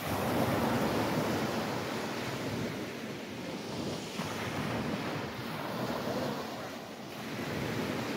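Small waves breaking and washing up a sand beach, the surf swelling and easing, with some wind noise on the phone's microphone.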